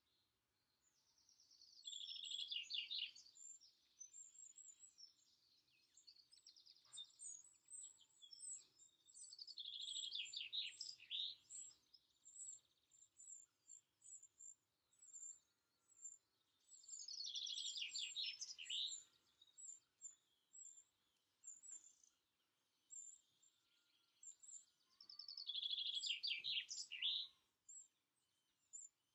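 Birdsong: one songbird repeats a short, falling, trilled phrase four times, about eight seconds apart, while another bird gives a string of short, high, thin calls in between.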